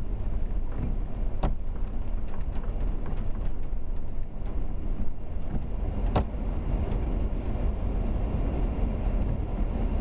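Wind buffeting the microphone in the rain: a steady, deep rumbling noise with no tones in it. A couple of sharp taps come through, about a second and a half in and again about six seconds in.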